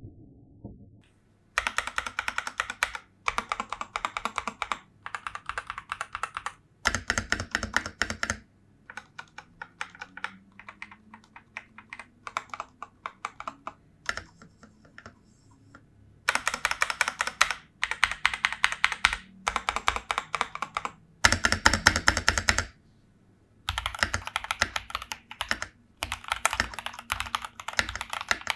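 Typing on a CIY Tester 68 mechanical keyboard with a tape mod, unlubed KB3 DVA POM switches, lubed stabilizers and Bilibili keycaps. Fast runs of keystrokes alternate with short pauses, with a stretch of softer, slower key presses in the middle.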